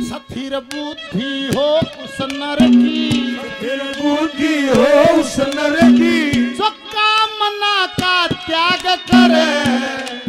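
Live Haryanvi ragni music: a man singing a long, wavering melodic line with no clear words, over hand drums and a steady held accompanying note.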